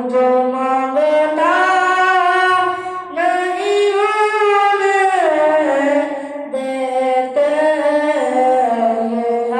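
A boy's solo voice singing unaccompanied into a microphone, in long held phrases whose pitch slides up and down between notes.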